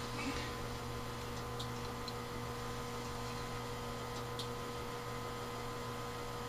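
Steady electrical mains hum, with a few faint, short clicks.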